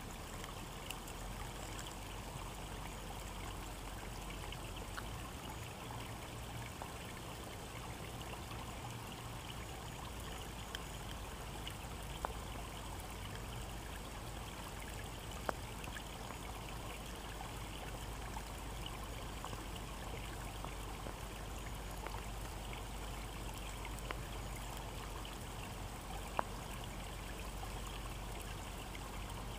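Shallow woodland brook flowing over stones and leaf litter: a steady, continuous trickle and babble of running water, with a few brief sharp ticks scattered through.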